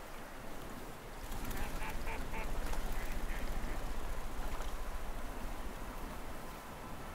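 A duck quacking, a quick run of about five calls starting about a second and a half in, over a steady low rumble.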